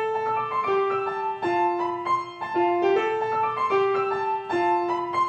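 Theme music: a piano playing a melody of ringing single notes.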